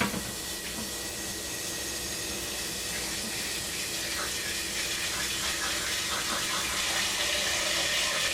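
Refrigerator water dispenser running filtered cold water into a container in a steady stream, getting slowly louder as the container fills.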